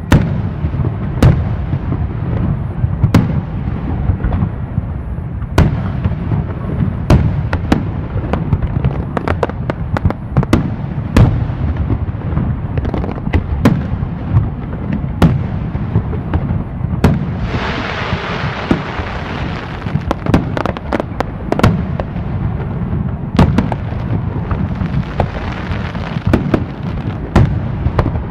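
Fireworks going off continuously: a steady low rumble of bursts with frequent sharp bangs. Two spells of brighter crackling come in, one about 17 seconds in lasting a couple of seconds, another about 24 seconds in.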